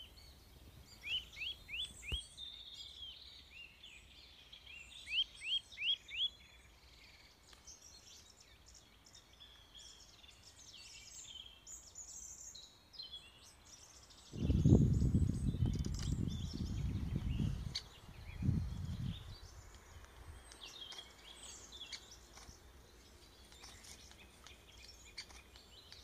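Great spotted woodpecker hammering an almond wedged in a bark crevice to crack its shell: two quick runs of four or five pecks, about a second in and again about five seconds in, over faint chirping of other birds. Past the middle a loud low rumble runs for about four seconds.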